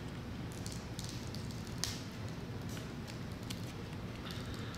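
A few small, sharp clicks and light scraping of the Amazon Echo Spot's plastic housing being pried at, over a steady low hum.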